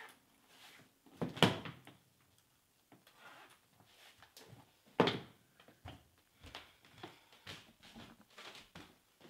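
A series of sudden knocks and clicks, the two loudest about one and a half seconds and five seconds in, with fainter ticks in between.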